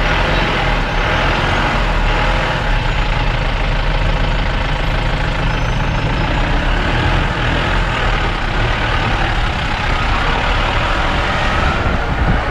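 Steady engine and road noise inside a car's cabin as it drives slowly over a rough, unpaved road, with a continuous low rumble.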